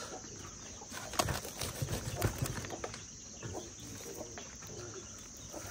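Kitchen knife cutting and tearing through a whole clay-oven-grilled chicken, with a few sharp crackles and knocks of the blade through crisp skin and bone in the first half.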